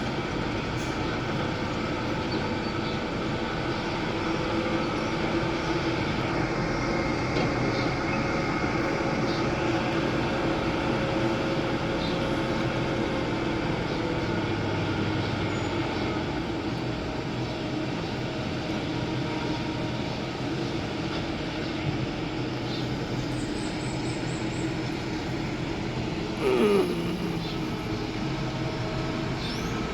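Heavy construction machinery engine running steadily. Near the end, a brief louder sound that drops in pitch.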